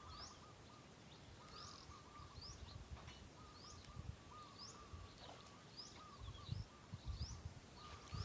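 Faint bird calls: a short rising chirp repeated about once a second over a lower, continuous wavering twitter, with some low rumbling underneath.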